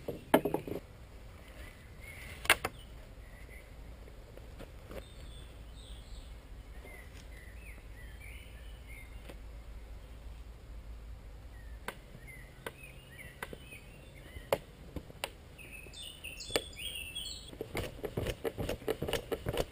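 Wooden poles and sticks being handled: two sharp knocks in the first three seconds, scattered single clicks, then a quick run of clicks near the end. Birds chirp in the background.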